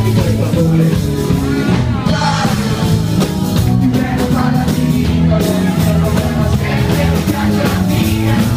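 Live band playing a loud song with singing and drums, heard from among the crowd.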